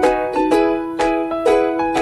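Background music: plucked, ukulele-like notes in a steady beat, about two a second.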